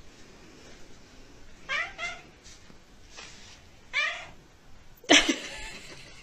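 A cat meowing: two short meows close together, then a third about two seconds later. Near the end a sudden louder rush of noise starts.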